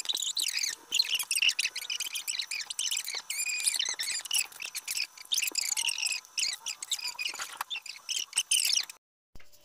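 Fast-forwarded voices, sped up into high, chirpy chatter. It cuts off sharply about nine seconds in.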